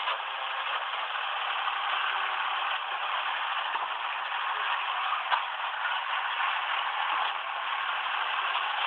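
Side-loading garbage truck running while its automated arm empties and picks up wheelie bins: steady engine and hydraulic noise with rattling and clattering, and a sharp knock about five seconds in.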